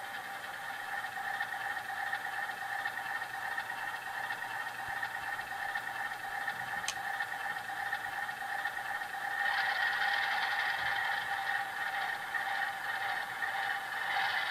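Sound-equipped HO-scale ALCO diesel model playing its prime mover sound through the model's small onboard speaker as it moves slowly, a steady thin engine drone with no bass. About nine and a half seconds in it gets louder and brighter. There is a single sharp click a few seconds earlier.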